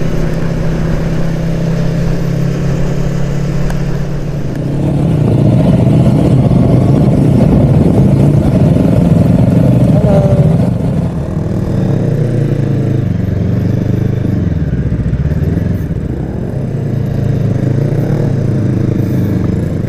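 FKM Falcon X400 motorcycle engine running at a steady speed, then from about four seconds in louder, its pitch rising and falling as the throttle is opened and closed.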